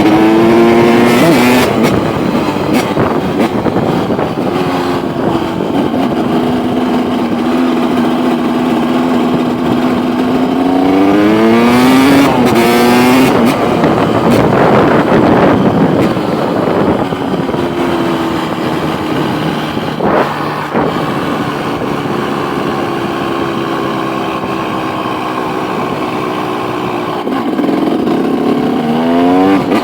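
KTM 200 EXC's single-cylinder two-stroke engine being ridden, holding steady revs for long stretches and rising in pitch as it accelerates about a dozen seconds in and again near the end.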